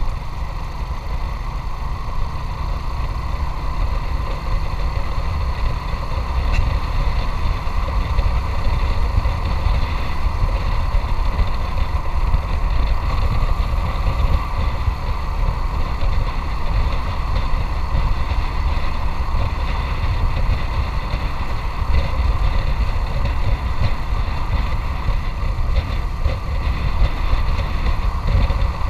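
Motorcycle engine running steadily on the move, a continuous low rumble with no breaks.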